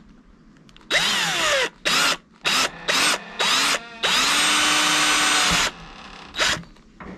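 Cordless drill boring a hole through the plastic frame of a dive mask: the motor whines up for about a second, then the trigger is pulsed in four short bursts, held for a steady run of nearly two seconds, and pulsed once more near the end.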